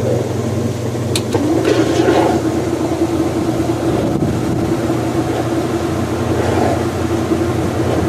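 Kenmore 80 series direct-drive washing machine spinning its tub. About a second in there is a sharp click, and then a new steady hum sets in over the lower motor hum as the spin is switched to high speed.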